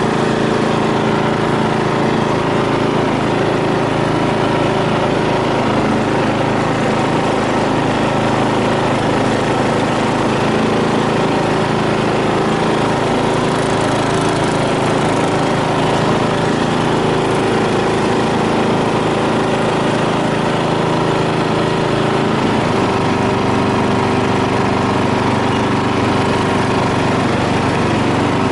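Lawn mower engine running steadily without a break; its tone shifts slightly about 22 seconds in.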